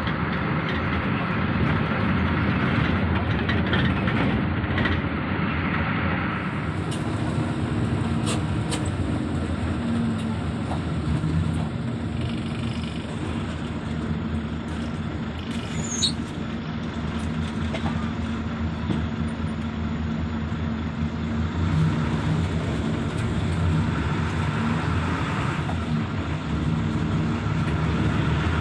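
Inside the cabin of a moving intercity bus: steady engine hum and road noise, with a few small clicks and rattles, one sharper about halfway through.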